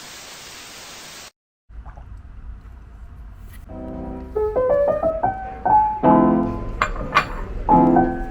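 About a second of steady hiss, a brief cut to silence, then a lo-fi background music track fades in: soft piano notes over a low beat, growing louder.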